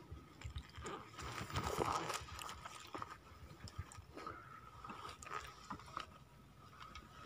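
Faint, irregular crackling and rustling from something being handled close to the microphone, over a faint steady high whine.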